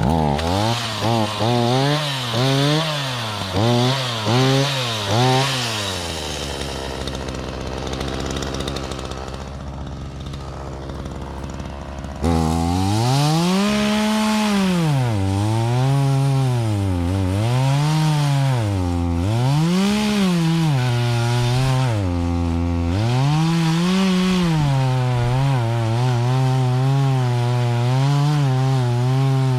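Two-stroke chainsaw revving up and down in quick blips, then settling to a low idle for several seconds. It then revs again in longer swells and holds a steady high speed near the end.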